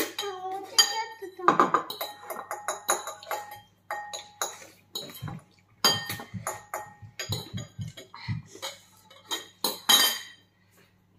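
Metal forks and spoons clinking and scraping against ceramic bowls, many sharp ringing clinks one after another, with a child's voice briefly near the start.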